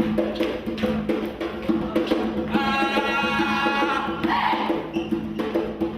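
Percussion music with drums and a wood-block-like knock beating out a steady rhythm. A held pitched note comes in about two and a half seconds in, drops out about a second and a half later, and returns near the end.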